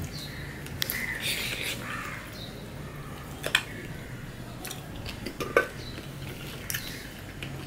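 Fingers squishing and scraping curry-mixed rice across a steel plate during hand-eating, with a few sharp clicks of the hand against the metal plate.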